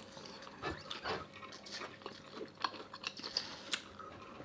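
Close-up eating sounds: chewing and biting food, heard as scattered small clicks and soft mouth noises.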